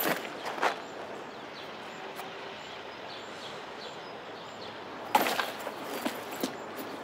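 Rustling and small knocks of a handbag being rummaged and its contents handled, over a steady outdoor background hiss; a louder burst of handling comes about five seconds in.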